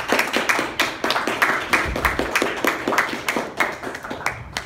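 A small group of people applauding, many hands clapping unevenly; the clapping thins out and fades near the end.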